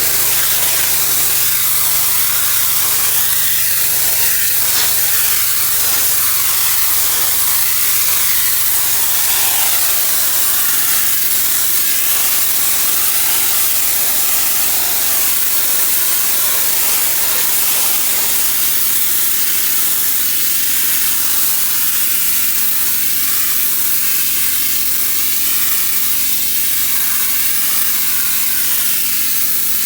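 Pressure washer spraying: a loud, steady hiss of high-pressure water hitting a hard surface, with a faint low hum underneath.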